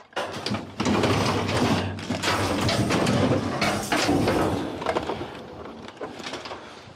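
Rummaging through junk in a steel dumpster: wire display racks and plastic items clattering and scraping against each other, with packaging rustling. Busiest in the first few seconds, then dying down.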